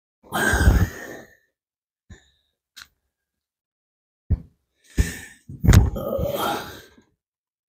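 A man sighing and grunting with effort as he works, broken by a few short clicks and knocks. There is one breathy exhale about half a second in and a longer one near the end.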